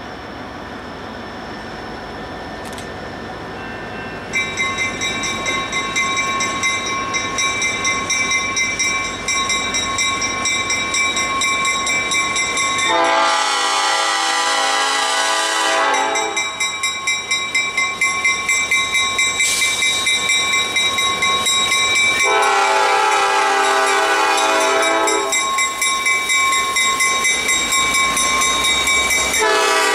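Nathan P5 five-chime horn on Coos Bay Rail Link GP30u 2448 sounding two long blasts about halfway through and a third starting near the end, the crossing signal pattern. Under it, from about four seconds in, a grade-crossing bell rings steadily as the locomotives approach.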